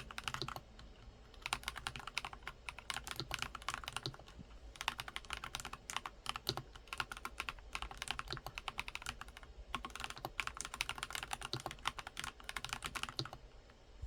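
NuPhy Halo65 mechanical keyboard with stock, unlubricated Night Breeze switches being typed on. The keys clack in fast runs, broken by brief pauses about a second in, around four seconds in, near ten seconds, and again near the end.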